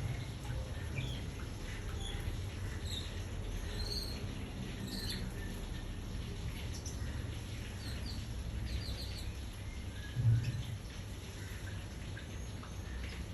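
Small birds chirping, short high chirps scattered irregularly, over a steady low hum, with one brief low thump about ten seconds in.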